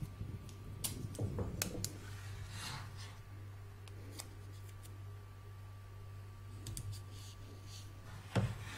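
Masking tape being handled, torn and pressed onto fabric in an embroidery hoop: scattered small clicks and crinkles with one short rasp about three seconds in, and a louder knock near the end. A steady low hum lies under it.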